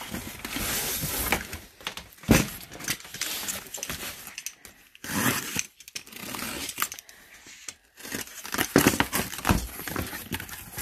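Cardboard cartons being handled and opened: a taped box lifted out of a larger one, packing tape slit with a box cutter, and the flaps pulled open. Scraping and rustling of cardboard with scattered sharp clicks and knocks, busiest over the last few seconds.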